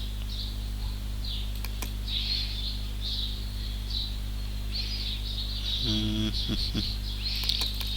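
Steady low electrical hum with repeated high-pitched chirping, a chirp every half second to second, and a couple of faint clicks about two seconds in.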